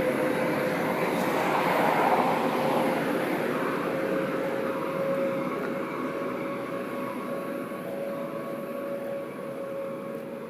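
Sprinkler truck going by: engine noise and water-spray hiss with a steady whine, fading slowly as it moves away.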